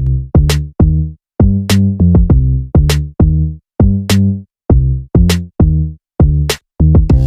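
Background music: an electronic beat of deep bass notes and sharp drum-machine hits, about two a second, with short breaks between phrases.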